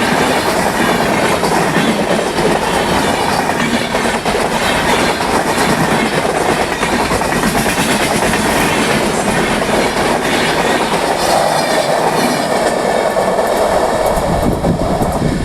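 Indian Railways express train running past close by, its wheels clattering over the rail joints in a steady, loud rush of noise.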